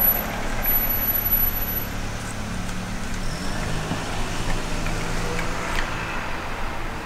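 A car engine running close by. Its low hum steps up in pitch about halfway through, over a steady wash of traffic noise.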